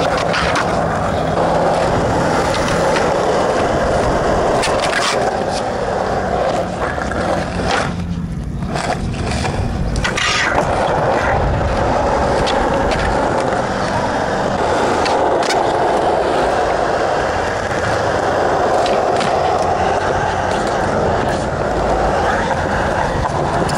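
Skateboard wheels rolling steadily over smooth concrete, with a few sharp clacks of the board hitting the ground scattered through.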